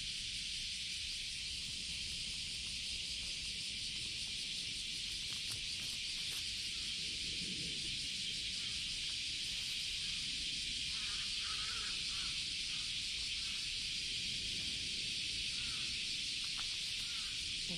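Steady high-pitched hiss of outdoor background noise, with a few faint soft sounds about halfway through.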